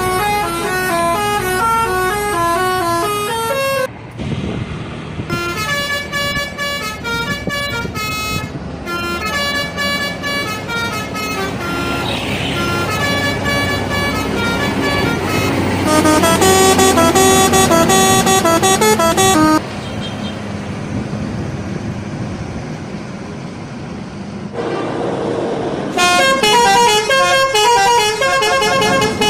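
Telolet bus horns, the multi-tone musical horns of Indonesian buses, playing quick stepped tunes of several notes at once. Several horn clips follow one another with abrupt cuts, and one stretch of a few seconds holds mostly road and engine noise.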